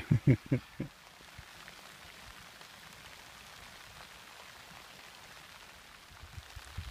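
Light rain falling on the plants and soil: a steady faint hiss with scattered drop ticks. A few low thumps come in the first second and again near the end.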